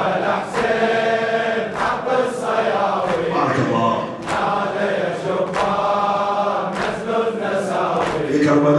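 Congregation of mourners chanting a latmiya refrain together, with a sharp slap about once a second from rhythmic chest-beating (latm).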